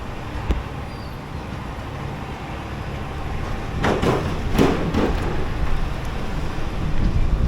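Truck towing a loaded trailer driving slowly: a steady low rumble, with a louder burst of noise about four seconds in.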